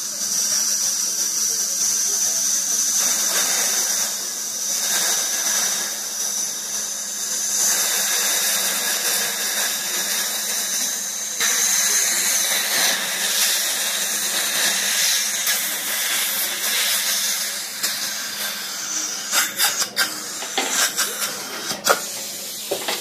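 Dental drill whining high and steady over the hiss of the chairside suction; the whine stops about halfway through. A few sharp clicks of instruments near the end.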